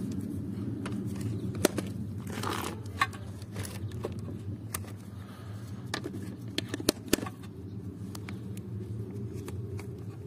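Steady low hum of a small air-conditioner compressor wired to run as a vacuum pump, with scattered light clicks.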